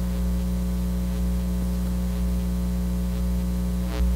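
Steady electrical mains hum, a low even buzz with a ladder of higher overtones, carried in the microphone and sound-system feed. A faint brief sound comes about four seconds in.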